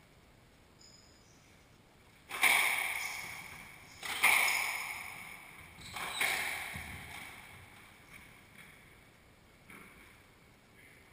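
Squash rally: the ball cracks off racket and walls three times, about two seconds apart, each hit ringing on in the court's echo. Softer taps and faint shoe squeaks follow in the later part.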